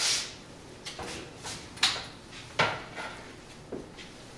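Oven door, oven rack and baking pans being handled: five or six separate knocks and clanks, the loudest about two and two and a half seconds in.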